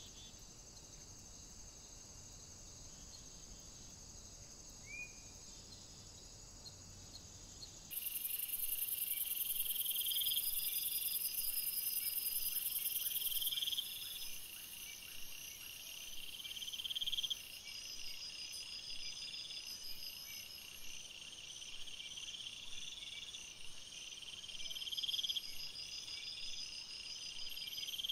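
Crickets and other night insects chirping in high-pitched trills. About eight seconds in, the sound jumps to a louder chorus, with a chirping phrase repeating every second or two.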